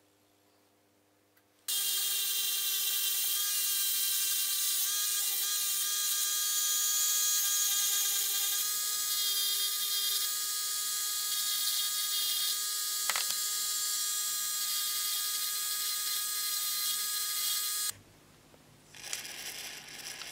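Small handheld electric rotary tool running with a steady whine as it works a small silver lighter part; it starts about two seconds in and stops abruptly a couple of seconds before the end, followed by faint scratchy rubbing.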